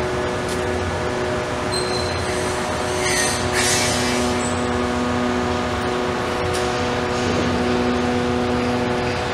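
Steady mechanical hum of construction-site machinery, with a short hiss about three and a half seconds in.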